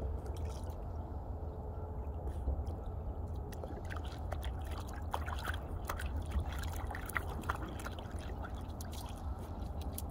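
A cocker spaniel nosing and pawing in shallow river water at a pebbly edge: small splashes and trickling, busiest in a run of quick clicks and splashes from about four to nine seconds in, over a steady low rumble.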